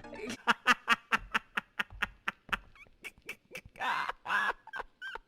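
A man's wheezy, gasping laugh: quick short clicking breaths, about four or five a second, with two louder honking bursts about four seconds in.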